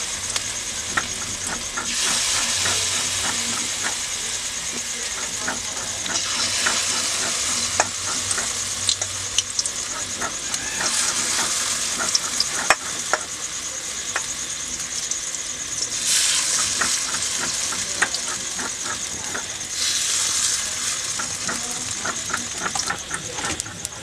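Arum flower pakoras deep-frying in hot oil in a kadai: a steady sizzle with sharp crackling pops, swelling louder each time another portion of batter goes into the oil, about every four to five seconds.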